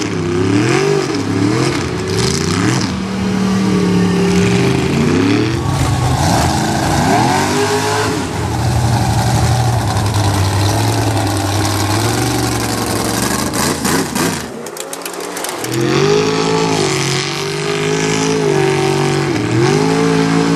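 Mega truck's engine revving hard again and again, its pitch climbing and falling as the big tyres churn through mud and water. About two-thirds through, the deep engine sound drops away for a second after a few sharp cracks, then the revving picks up again.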